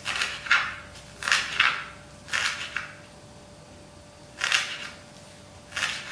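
Kitchen knife chopping green onions on a wooden cutting board: about eight sharp chops at an uneven pace, mostly in pairs, with a pause of over a second in the middle.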